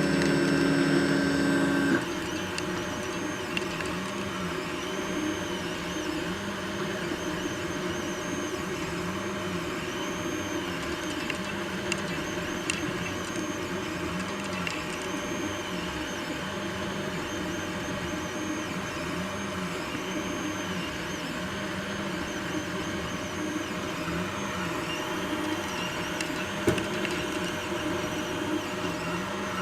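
Anycubic i3 Mega 3D printer running, its stepper motors whining in rising-and-falling tones that repeat every second or so as the head moves, with a few sharp clicks from the extruder. Extruder clicking like this is typical of the extruder skipping on the filament, which the uploader traces to slicer settings, an unlevel bed or old PLA filament.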